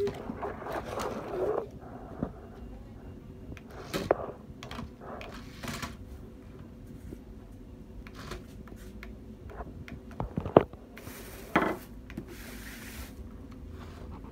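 Plastic toy rock-crawler truck handled and pushed about on a wooden table: scattered knocks, clicks and rubbing, with one sharp knock about ten seconds in as the most prominent.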